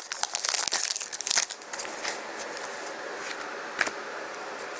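Plastic crinkling and rustling as trading cards and their packaging are handled, busiest in the first second and a half, then dying down to a faint hiss with a single click near the end.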